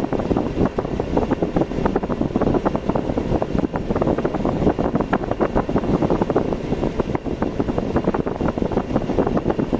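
Wind buffeting the microphone over the steady noise of a vehicle travelling on the road, a continuous rushing, fluttering noise.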